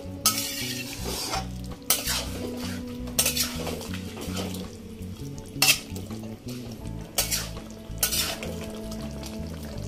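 Metal spatula stirring a thick vegetable curry in a kadai, scraping and knocking against the pan several times, over soft background music.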